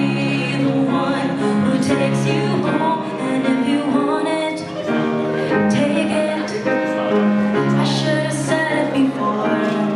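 A woman singing into a microphone, accompanied by a grand piano.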